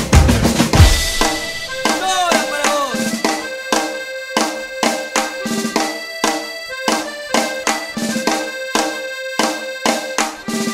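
Background music with a steady beat and sustained chords; the low drums drop out about a second in.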